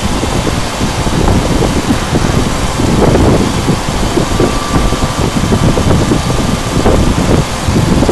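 CNC router running steadily while machining acrylic plate, a loud, even machine noise with a rough, fluttering rumble underneath.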